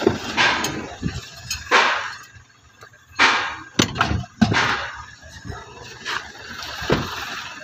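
Irregular metal knocks and clanks as steel tools and a long bar are handled and struck while the suspension is dismantled. There are about eight to ten separate sharp strikes, some with a short ringing tail.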